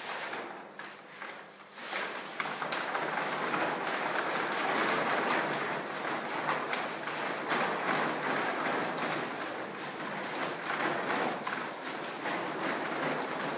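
Large sheet of painted paper rolled up and dragged across a floor, rustling and crackling steadily from about two seconds in.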